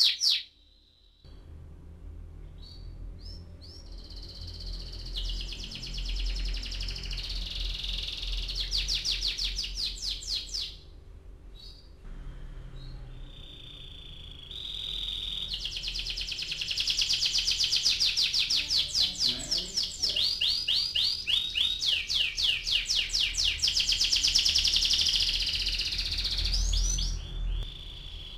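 Yellow domestic canary singing long rolling trills of rapid repeated notes, with short breaks about a second in and again around eleven seconds, over a low steady background hum.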